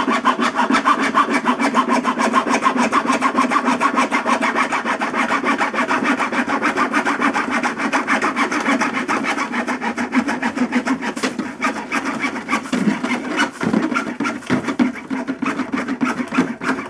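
Junior hacksaw cutting through a plastic cable duct with quick, even back-and-forth strokes, growing less regular in the last few seconds.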